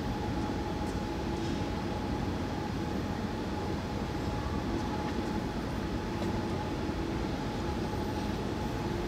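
Sotetsu electric commuter train, heavy low running noise held steady at one level, with a constant humming tone above it.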